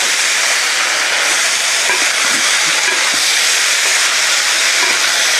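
Chunks of beef shin (morcillo) sizzling steadily as they brown in hot oil in a frying pan, with a wooden spoon stirring and knocking the pieces now and then.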